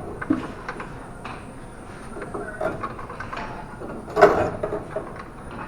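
Scattered metallic clinks and knocks of wrench work on a car's front suspension, with one loud clank about four seconds in.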